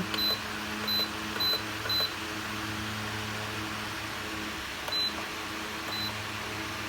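Zanussi electric fan's control panel giving six short high beeps, four in quick succession and two more a few seconds later, as the mode buttons are pressed, over the fan's steady running hum.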